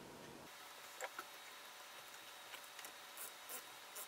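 Faint, scattered small clicks and taps as a 3D printer nozzle is threaded into its heater block by hand and a socket is fitted onto it to tighten it down.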